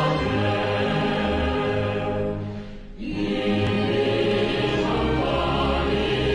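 Outro music with sustained choir-like voices, dipping briefly about three seconds in before swelling back.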